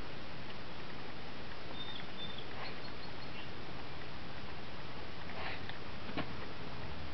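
Ibizan hound sniffing, with a few short sniffs about two and a half and five and a half seconds in, over a steady hiss. A brief faint high squeak comes about two seconds in.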